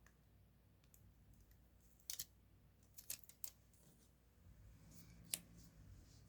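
Scissors snipping paper in a handful of short, separate cuts, starting about two seconds in, with one louder snip near the end.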